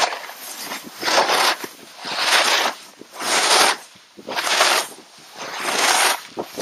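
Snowboard edges scraping and skidding through snow in quick turns over moguls, one scrape about every second, six in a row.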